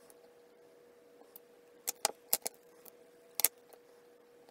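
Sharp clicks and taps of a clear acrylic stamp block being handled and pressed down onto card: a quick cluster about two seconds in, then one louder click about a second later.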